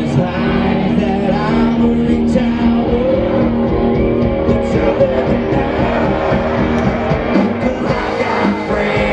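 Live country band playing loudly through the PA, electric guitar over bass and drums, with a voice singing.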